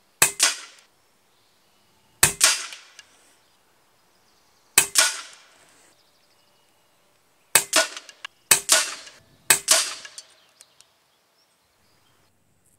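Daystate Red Wolf .177 HP pre-charged pneumatic air rifle firing six shots, each a sharp report with a short decaying tail. The first three come a couple of seconds apart and the last three in quick succession, about a second apart.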